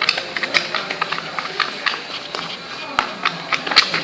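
Irregular clicking and tapping of a utensil stirring a glue-and-soap slime mixture in a container, just after slime activator has been added to make it clump.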